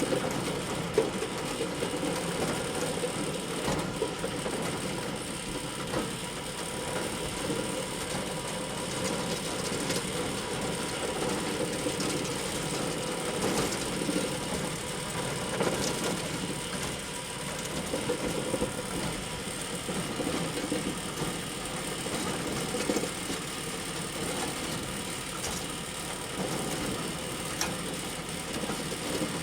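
Bale elevator running steadily: a continuous mechanical clatter from its motor and conveyor chain, with scattered light clicks and rattles.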